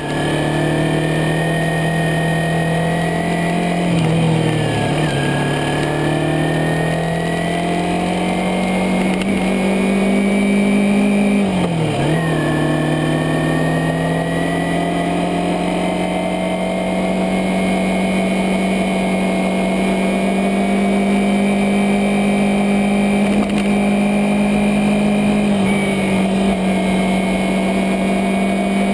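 Kawasaki Ninja 250R's parallel-twin engine running under way, its revs climbing slowly and dipping sharply about four, twelve and twenty-six seconds in before picking up again.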